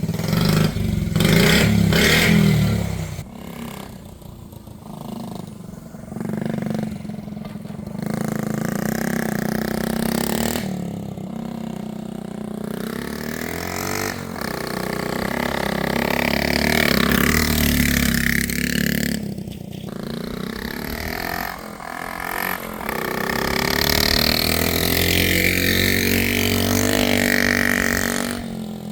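1970 Honda Z50's small single-cylinder four-stroke engine running after a carburetor tune-up, its pitch rising and falling repeatedly as the revs go up and down.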